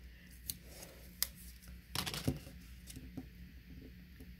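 Faint paper handling: scattered soft rustles and clicks as folded cardstock is pressed and a strip of double-sided sticky tape is worked onto it, the loudest cluster about two seconds in.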